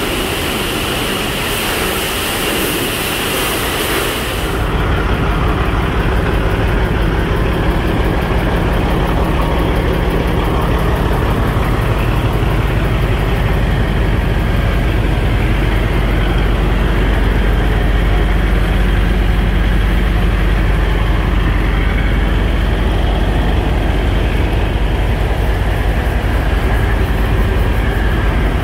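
For the first four seconds or so, high-pressure washer spray hissing steadily against a semi truck. Then a steady low hum of a diesel tractor-trailer rig idling, with its refrigerated trailer attached.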